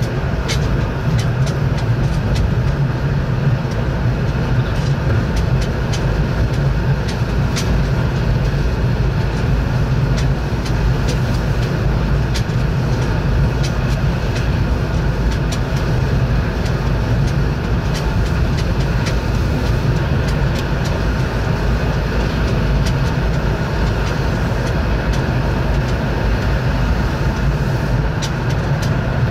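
Yurikamome rubber-tyred automated guideway train running along its elevated track, heard from inside the car: a steady low rumble of running noise with scattered light clicks.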